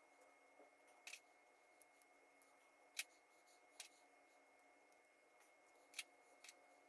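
Scissors snipping tangled hair off a Roomba part: a few sharp, separate snips a second or more apart, over a faint steady hum.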